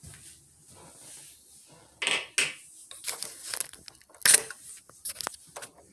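Handling noise from a phone camera being picked up and moved: a quiet start, then irregular knocks, scrapes and rustles from about two seconds in, the loudest knock a little past the middle.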